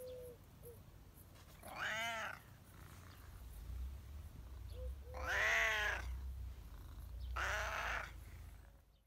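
Domestic cat meowing three times, a couple of seconds apart; the middle meow is the longest and loudest.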